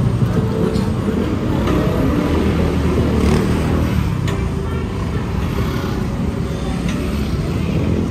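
Busy street traffic: motor vehicle engines running close by, with people's voices mixed in.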